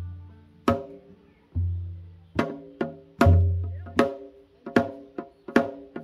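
Folk instrumental with a barrel drum and plucked strings. Deep drum booms come about every second and a half, with sharp shell or rim strikes between them, and plucked banjo and guitar notes ring over the beat.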